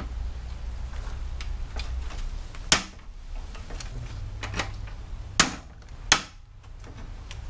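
Hand pop-rivet gun squeezed repeatedly, setting rivets in a plastic panel, with light ticks from the handle and three sharp snaps as rivet mandrels break off: one about a third of the way in and two close together near the end. A low steady hum runs underneath.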